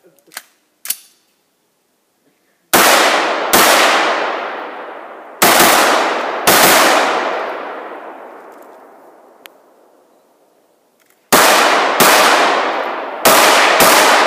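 Semi-automatic rifle firing eight shots in four pairs, each shot ringing out with a long echo that fades over a couple of seconds. There is a pause of about five seconds between the second and third pairs.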